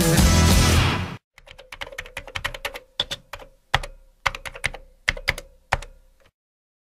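Music breaks off about a second in. Then keys on a computer keyboard are typed in an irregular run of clicks for about five seconds, stopping shortly before the end.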